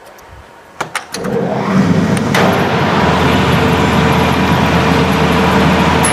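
Bamboo-slicing machine for satay skewers starting with a few clunks about a second in, then running up to a loud, steady mechanical clatter as it slices a bamboo strip.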